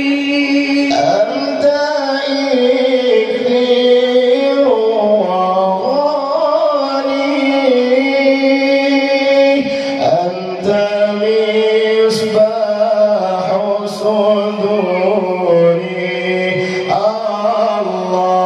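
Two men singing sholawat, a devotional Islamic song in praise of the Prophet, as a duet through microphones. Their voices hold long, drawn-out notes with ornamented turns, and the melody steps to new pitches a few times.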